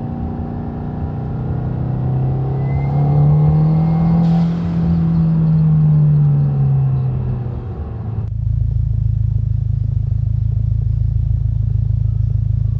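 Subaru WRX (2022 on) turbocharged 2.4-litre flat-four through a Noble 3-inch stainless quad-tip cat-back exhaust with straight-through mufflers, heard from inside the cabin as it pulls, the pitch rising for a few seconds and then falling as it lets off. About eight seconds in, it cuts to the tips outside: the engine idling with a steady deep rumble.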